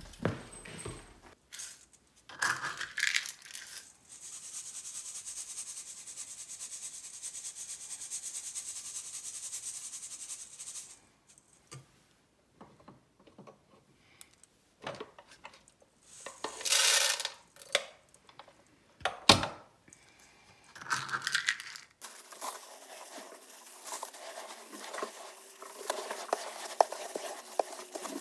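Dry cat kibble rattling and clattering in a wire-mesh sieve as it is shaken over a stainless-steel sink to sift out the fine food dust, with several sharp clatters.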